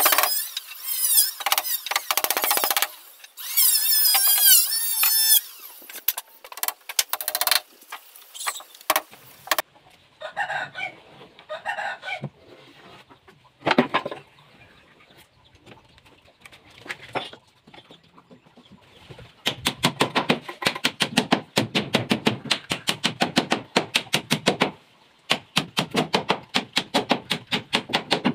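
Back panel of a teak wardrobe being nailed onto the frame: scattered knocks, then two long runs of quick, evenly spaced sharp knocks, about four a second, through the second half. In the first few seconds, high wavy calls of chickens clucking.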